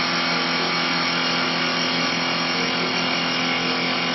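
CNC wood lathe turning a wooden spindle, its double blades cutting the spinning blank: a steady, dense cutting noise over the constant hum of the machine's motors.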